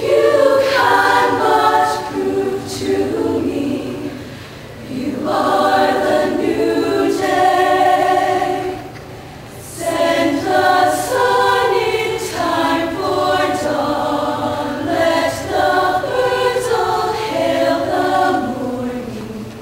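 Women's show choir singing in harmony, in phrases broken by short breaths about four and nine seconds in.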